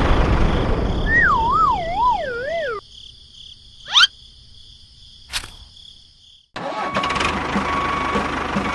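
A small engine running, overlaid by a wavering tone that falls in pitch. The engine noise cuts off abruptly, leaving a quieter stretch with a steady high tone, a quick rising swoosh and a click. After a few seconds the engine noise starts again just as suddenly.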